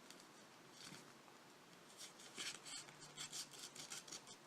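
Faint rustling and scraping of a paper envelope being handled, in a few short scratches.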